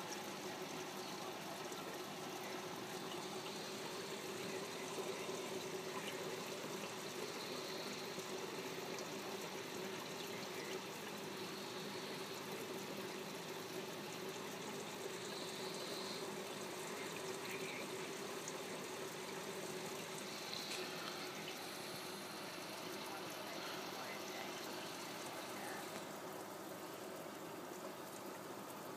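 Aquarium filter running: a steady trickle of moving water with a faint low hum underneath.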